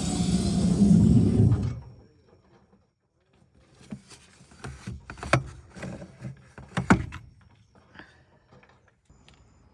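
A loud low rumble with falling tones cuts off suddenly in the first two seconds, then a run of metal clanks and knocks as a four-way lug wrench is picked up and handled for a tyre change.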